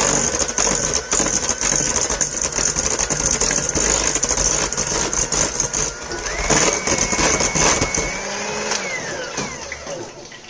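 Electric hand mixer running, its beaters creaming butter and sugar in a stainless steel bowl. Its whine steps up in pitch about six seconds in as the speed is raised, then winds down with a falling whine about nine seconds in.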